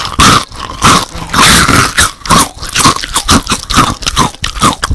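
Monster eating sound effect: repeated crunching bites mixed with animal-like growls, coming faster in the second half.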